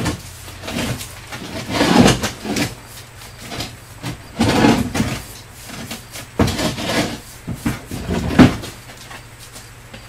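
Empty plastic concrete-paver molds knocking and clattering against each other and the workbench as they are handled and stacked, in a string of irregular knocks.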